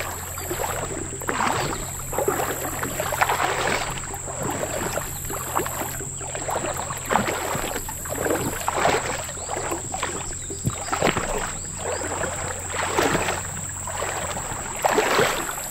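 Person in rubber boots wading through a shallow, rock-bottomed slough: irregular splashing steps in the water, about one a second.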